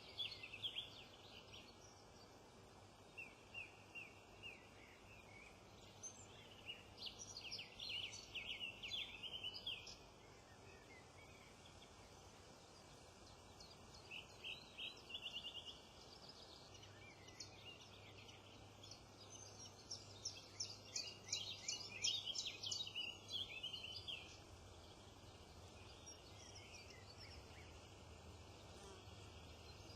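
Small wild songbirds singing and calling in several short bouts of quick chirps and trills, with quieter gaps between them.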